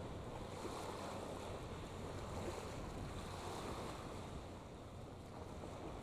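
Steady waterside ambience: wind buffeting the microphone over a low rumble and the wash of water, with no distinct events.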